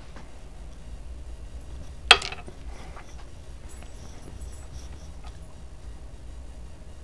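Low steady hum with one loud, sharp click about two seconds in and a few faint ticks.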